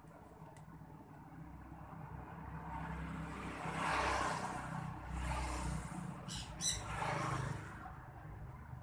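A vehicle passing by, swelling to its loudest about four seconds in and fading away near the end, with a brief chirping about six and a half seconds in.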